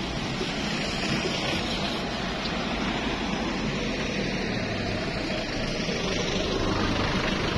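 Steady road traffic noise, an even rumble and hiss of passing vehicles with no distinct events.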